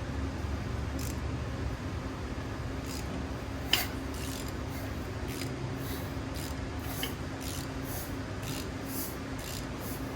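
The crankshaft of a 2015 Ram 1500's 5.7 L Hemi V8 being turned over by hand: repeated short metallic rasps and clicks, with one sharp clack about four seconds in, over a steady low hum. The engine has a bad camshaft and lifter on the number 3 intake valve.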